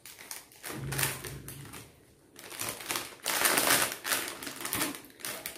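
Jewellery and its packaging being handled: dense runs of small clicks and rustles, pausing briefly about two seconds in and loudest near the middle.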